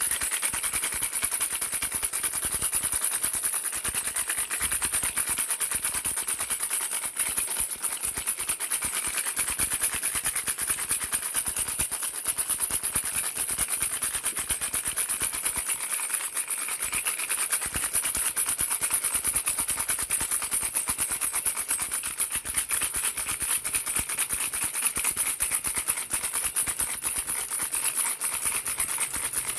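A baby rattle shaken rapidly and without a break, giving a dense stream of fast, high-pitched rattling clicks with a steady high whine behind it.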